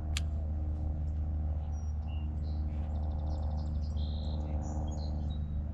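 Songbirds chirping, with short calls and a quick trill in the middle, over a steady low hum.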